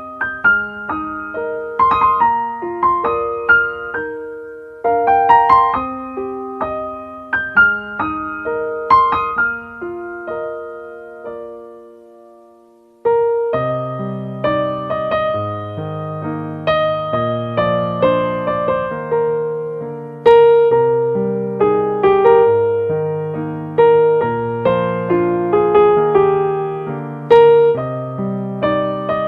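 Slow solo piano music with struck notes ringing out and decaying. It fades almost to silence about eleven seconds in, then comes back fuller, with low bass notes under the melody.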